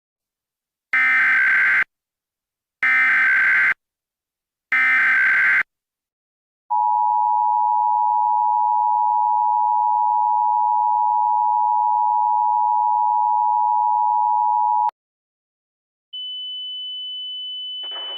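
Emergency Alert System header: three short bursts of SAME data tones, about a second each, then the two-tone EAS attention signal held steady for about eight seconds and cut off with a click. After a short pause a single higher steady tone begins, and a rough, crackly noise joins it near the end.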